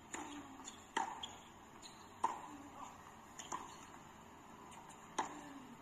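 Tennis ball struck back and forth in a rally that starts with a serve: sharp racket hits and ball bounces about once a second.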